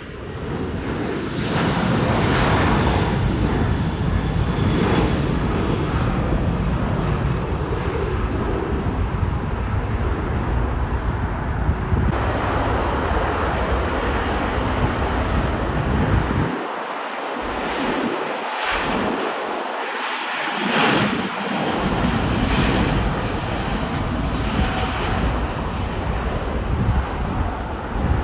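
Jet aircraft engine noise from passing airliners, a loud steady rush with deep rumble, changing abruptly a few times as the clips cut.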